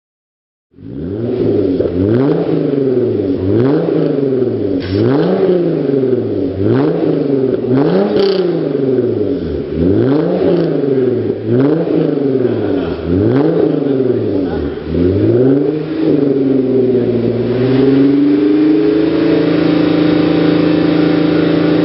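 Hyundai Genesis 3.8L V6 with an ARK DT-S exhaust, revved in a run of about ten quick throttle blips, roughly one every second and a half. It then holds a steady engine speed for the last few seconds.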